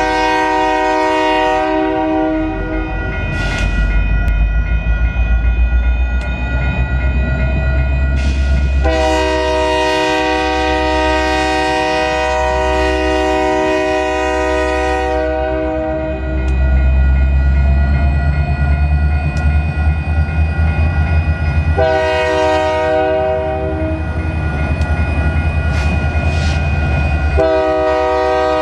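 Union Pacific GP60 diesel locomotives' multi-chime air horn sounding the grade-crossing signal: long, long, short, long. The first blast is already sounding and ends about two seconds in, and the last starts near the end. A steady low diesel engine rumble runs under the horn.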